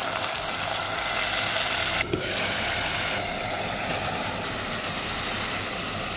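Hot oil sizzling steadily in a pot as ground spices and then shrimp are tipped into it.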